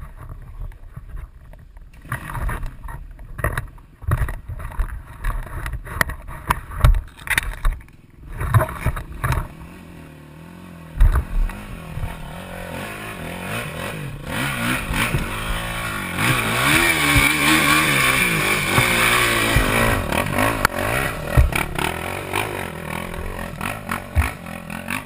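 Four-stroke single-cylinder dirt bike engine revving hard on a steep, loose hill climb, the rear wheel spinning and throwing dirt. The first half holds scattered knocks and scrapes. About halfway the engine comes in steadily, its revs rising and falling, and it runs loudest a little after that.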